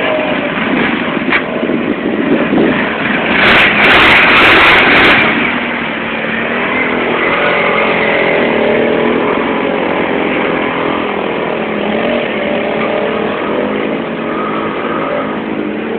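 ATV engines running and revving, their pitch rising and falling as the quads plough through deep muddy water. A loud rush of noise comes between about three and five seconds in.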